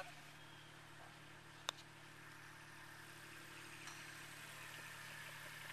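A single sharp click of a putter striking a golf ball, with a short ring, about a second and a half in, over a faint steady low hum.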